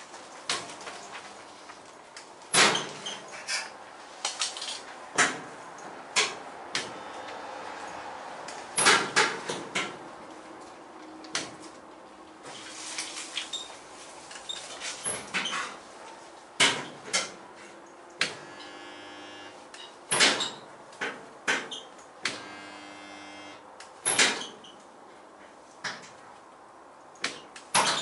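Irregular metal knocks and clanks from work on a bare Classic Mini body shell, some ringing briefly. Two short buzzing stretches come about 18 and 22 seconds in.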